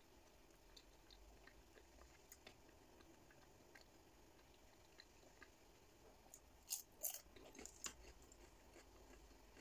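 Faint chewing and small mouth clicks of a person eating, with a short cluster of louder crackling clicks about seven seconds in.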